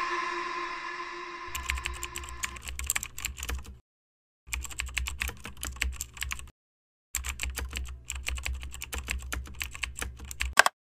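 Typing on a computer keyboard: rapid key clicks in three runs with short silent pauses between them, ending on one louder keystroke. A musical chord rings out and fades under the first two seconds or so.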